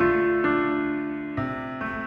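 Background music of soft piano chords, a new chord struck every half second to a second.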